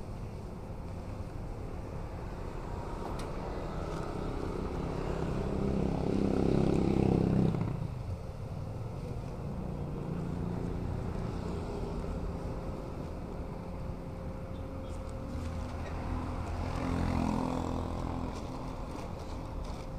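Roadside motor traffic: a steady low rumble of vehicles, swelling loudest about six to seven seconds in before dropping away sharply, and swelling again briefly about seventeen seconds in.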